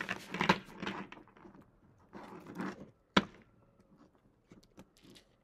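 Tarot cards being handled and shuffled in two short rustling spells, then one sharp tap about three seconds in, with a few light clicks after.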